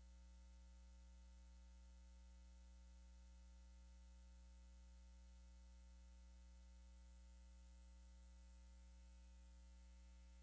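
Near silence with a faint, steady low hum, like electrical hum on the audio line.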